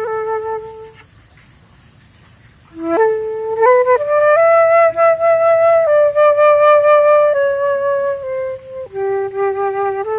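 Solo flute playing a slow improvised melody. One note ends about a second in, and after a short pause come long held notes, then quicker stepping notes near the end.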